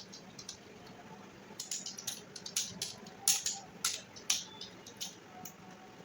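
Computer keyboard keys being typed on in an irregular run of clicks, sparse at first, a quick flurry in the middle, then a few scattered strokes near the end.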